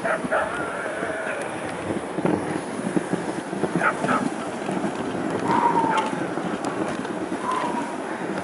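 Dog sled running over packed snow behind a team of huskies: a steady rough hiss and patter from the sled runners and the dogs' paws, with a few short high squeaks.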